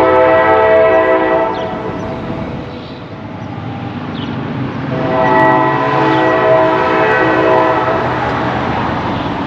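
Locomotive air horn sounding a chord of several tones in two long blasts, the first ending about two seconds in and the second from about five to eight seconds in, over the steady rumble of a train.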